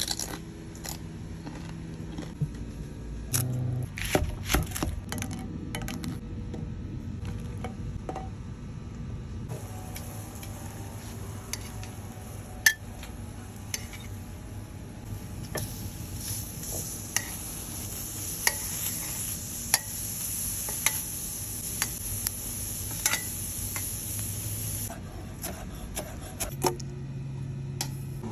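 Kitchen cooking sounds: utensils clicking and knocking against pans and dishes. A steady sizzle of food frying in a pan joins about ten seconds in and stops a few seconds before the end.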